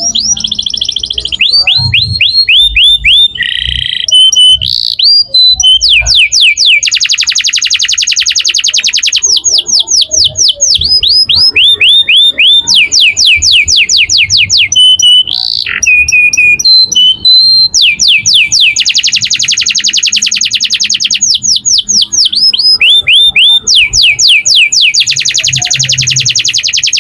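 F1 Rasmi domestic canary singing a long, very loud unbroken song of rapid repeated sweeping notes and fast trills, with hardly a pause: the nonstop "ngedur" singing prized in contest canaries.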